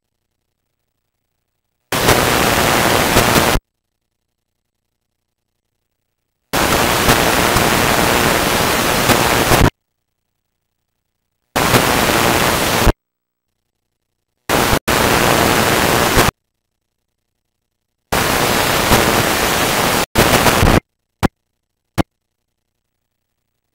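Loud bursts of hissing static from unrecorded or damaged videotape playback, each switching on and off abruptly with dead silence between. There are about seven bursts, each one to three seconds long, then two short clicks near the end.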